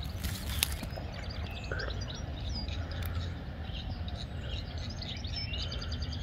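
Small birds chirping and singing in many short, quick calls, over a low steady rumble.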